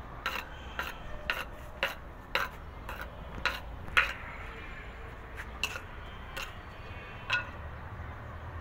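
A thin rod tapping and scraping on a concrete floor: irregular clinks and knocks, about one or two a second, loudest about four seconds in and sparser in the second half.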